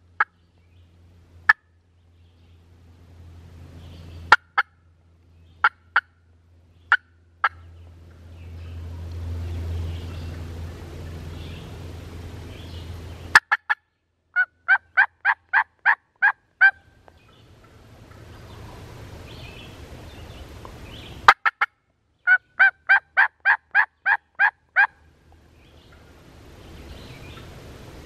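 Turkey yelping: several single clucks, then two runs of about ten yelps at roughly four a second, each run lasting about two and a half seconds.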